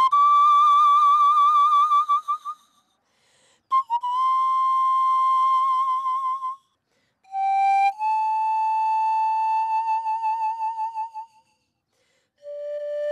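Romanian nai (pan flute) played solo: a slow melody of long held notes with wide vibrato, each phrase lasting about three seconds with short silences between. The phrases step lower in pitch, and a low note begins near the end.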